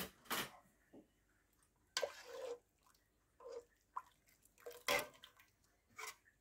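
Spoon stirring and splashing in broth in a stainless steel pot: about five short splashes and clinks, the loudest about five seconds in.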